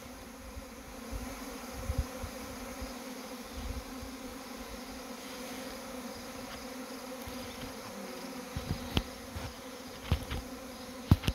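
A swarm of honey bees buzzing: a steady hum of many bees flying around and into a hive box. A few sharp clicks sound in the last few seconds.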